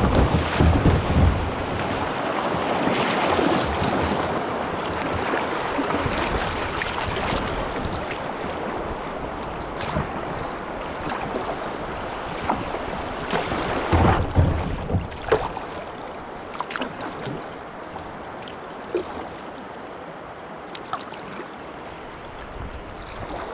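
River water rushing through a small class II rapid around a kayak, loud at first and fading over the second half as the boat moves out into calm water. Short splashes of paddle strokes are heard through it, with a few low thumps about a second in and again around fourteen seconds.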